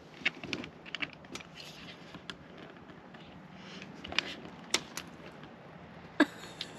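Scattered light clicks and taps, about eight to ten at uneven spacing, as hands handle and seat a plastic backup camera housing on the roof edge of a trailer.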